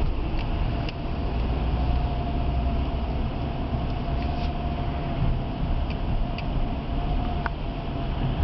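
Road and engine noise inside a moving car's cabin: a steady low rumble with a faint steady whine and a few light ticks.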